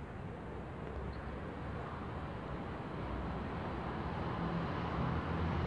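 Steady background hum of distant road traffic, slowly growing louder toward the end as an engine comes nearer.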